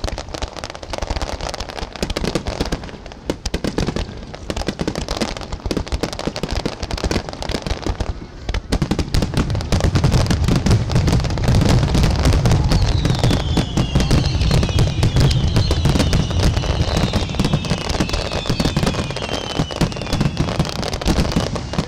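Finale fireworks: a dense barrage of shells bursting and crackling, building about nine seconds in into a continuous heavy rumble of booms. Several high, falling whistles sound over it in the second half.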